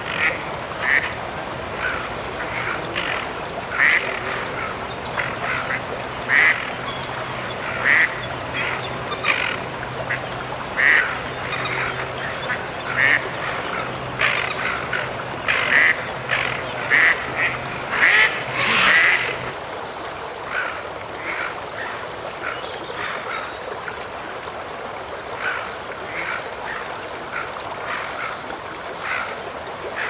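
Ducks calling: a long run of short, repeated calls, roughly one a second, coming faster and closer together for a few seconds past the middle.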